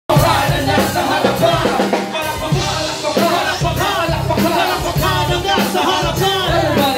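Live band playing a steady beat with drums and bass through a club PA, with a rapper's voice over the music.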